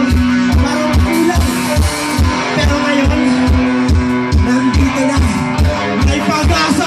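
Live rock band playing through a PA: electric guitars, bass guitar and a drum kit, with a steady kick-drum beat about three times a second under a held guitar note.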